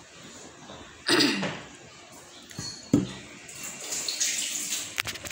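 Kitchen sounds: a tap running in the second half, with a sharp knock about three seconds in and a loud short sound about a second in.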